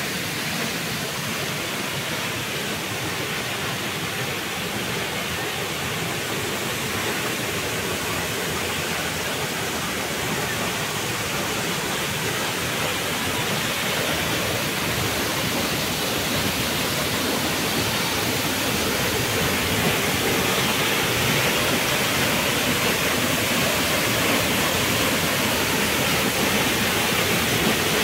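Waterfall: a steady, even rush of falling water, growing a little louder through the second half.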